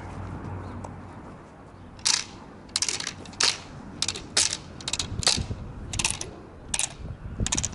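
A cloth rag being shaken and snapped through the air in short swishing bursts, about two a second, starting about two seconds in.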